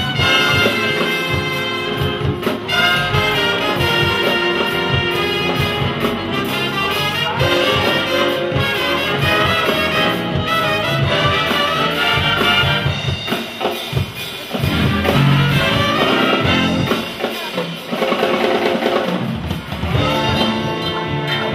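Brass-led circus band music, trumpets and trombones to the fore, playing without a break.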